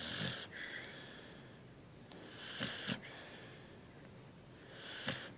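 A sleeping dog snoring: three snores, about two and a half seconds apart.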